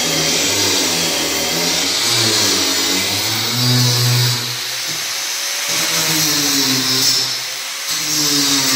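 Handheld electric power tool running against the pool floor, its motor pitch shifting up and down under load, with a gritty hiss of abrasion; the motor briefly eases off about four and a half seconds in and again near the end.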